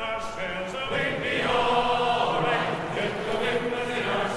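Background music with chant-like choral singing, voices holding long notes.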